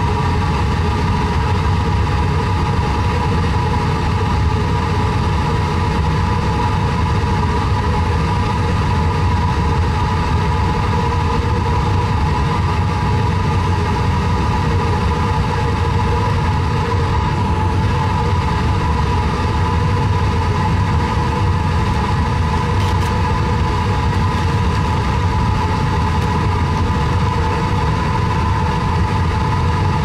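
Wet/dry shop vacuum rigged as the blower of a homemade drum furnace, running steadily with a constant motor whine over a low rumble as it forces air into the furnace.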